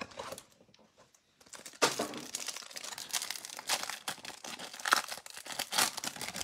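Clear plastic wrapper of a Panini Mosaic football card pack being torn open and crinkled by hand. A dense run of crackling starts about two seconds in.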